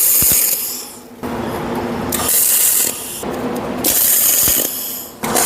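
CO2 (MIG) welder tack-welding 9 mm steel plate: about four short bursts of arc crackle and hiss, one after another with brief pauses between.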